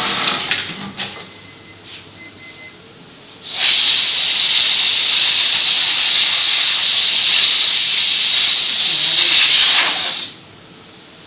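A loud, steady hiss that starts abruptly about three and a half seconds in, lasts about six and a half seconds and cuts off suddenly; a few faint clicks come before it.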